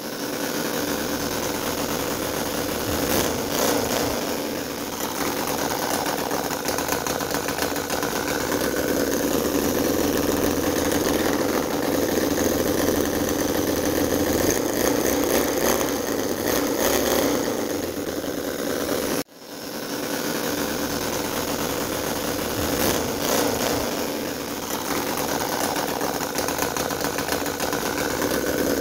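CISON FG-VT9 9cc V-twin model gasoline engine running, revving up and easing off a few times, with one cylinder misfiring. The owner traces the misfire to a short circuit in the ignition linking both spark plug leads, so both plugs fire together and cylinder No. 1 fires at the wrong time. The sound cuts out briefly about two-thirds of the way through.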